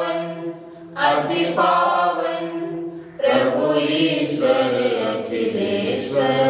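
Unaccompanied liturgical chant sung in slow phrases of long held notes, with short breaks about a second in and about three seconds in.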